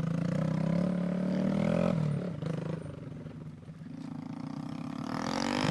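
Honda Grom's small single-cylinder four-stroke engine revving under throttle while the bike crosses a log on a dirt trail: the revs climb, drop off about two seconds in, and rise steeply again near the end.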